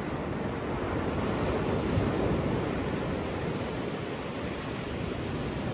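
Ocean surf breaking and washing up a sandy beach, a steady rush that swells briefly about two seconds in.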